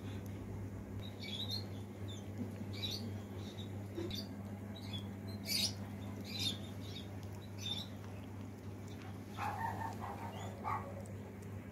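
A cat licking and smacking at a squeeze-tube treat: scattered short, wet clicks over a steady low hum, with a brief higher-pitched call about three-quarters of the way in.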